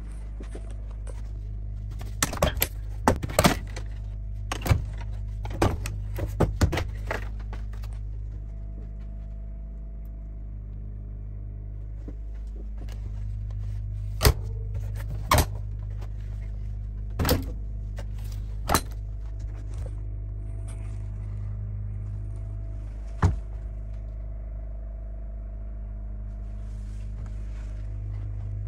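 RV refrigerator doors and latches being opened and shut: a quick run of sharp clicks and knocks in the first few seconds, then single clicks and thunks spread through the rest. Under them runs a steady low mechanical hum.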